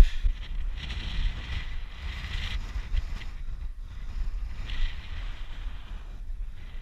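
Wind buffeting an action camera's microphone: an uneven, steady low rumble with stretches of hiss. A single knock at the very start.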